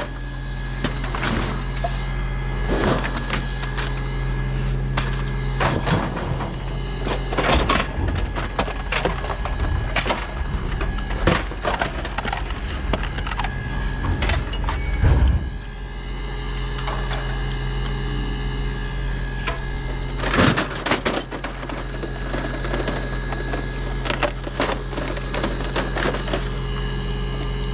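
Scrap metal being handled and dropped, with irregular clanks and knocks over a steady machine hum.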